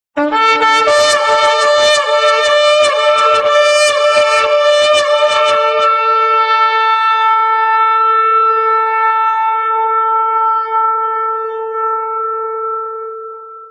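A horn blown in one long call. It opens with a brief low note, breaks into a rapid run of wavering, broken blasts for about six seconds, then holds one steady note that fades out near the end.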